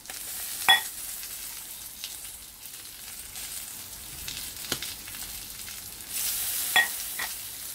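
Pork belly sizzling steadily in a grill pan, with sharp ringing clinks on the ceramic bowl as pork stock is ladled over the noodles: a loud one about a second in and another near the end.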